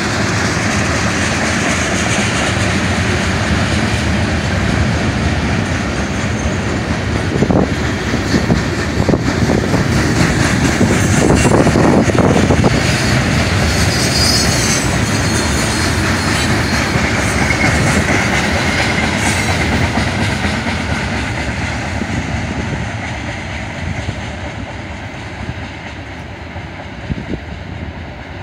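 Freight train of tank cars and boxcars rolling past at speed: a steady rumble with the clickety-clack of wheels over rail joints and a few sharp knocks near the middle. It fades over the last several seconds as the end of the train moves away.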